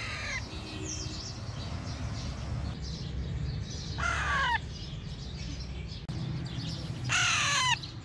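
Baby Alexandrine parakeet calling: a short call at the start, a loud call about four seconds in, and a longer run of calls near the end, each falling in pitch.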